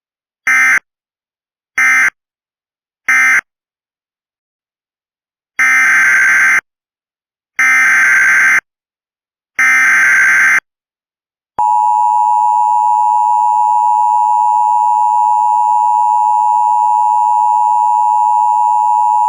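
Emergency Alert System broadcast tones: three short SAME data bursts closing the previous alert, then three longer SAME header bursts, then the steady two-tone EAS attention signal for about eight seconds, announcing the next warning.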